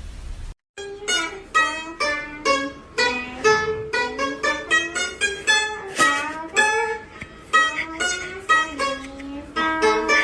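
Background music: a tune of quickly plucked notes on a string instrument, starting after a brief dropout about half a second in.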